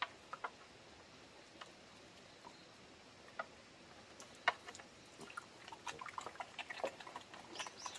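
Small black pigs eating cooked wild-plant feed from a bamboo trough: scattered clicks and smacks of their mouths in the mash, getting much busier from about four seconds in.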